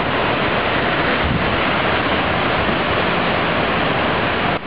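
Floodwater rushing across a flooded road, a steady, even rush of water.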